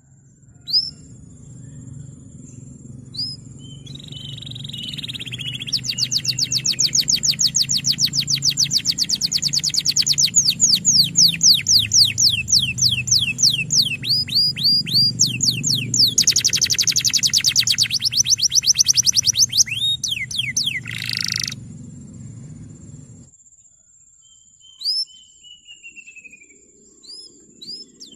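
Male canary singing a long rolling song of fast, evenly repeated high down-slurred notes, starting about six seconds in and running to about twenty seconds, with scattered single chirps before and after.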